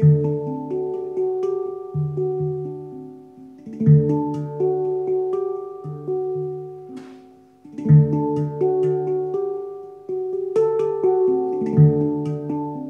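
Hang (steel handpan) played with the fingertips: ringing struck notes build a melody over a deep low note, with an accented strike about every four seconds.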